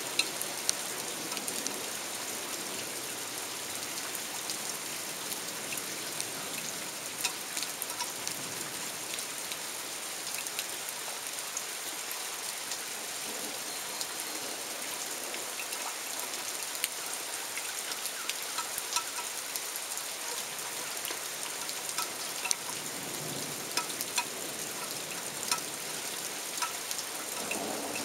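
Steady rain falling, an even hiss with many separate drops tapping sharply close by.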